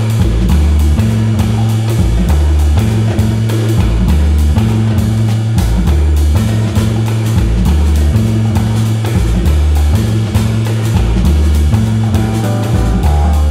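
Background music with a steady drum beat over a deep, repeating bass line.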